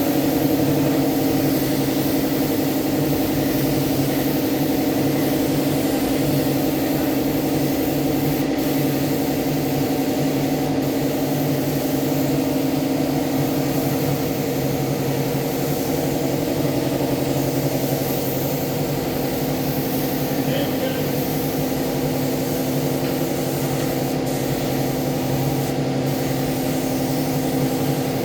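A motor running steadily at constant speed: a low, unchanging machine hum with a few faint clicks.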